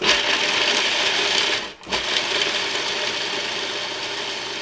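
Cuisinart food processor pulsing, its blade grinding walnuts, garlic and Parmesan into fine crumbs for pesto. Two pulses, the motor stopping briefly just before two seconds in and then running on for the rest.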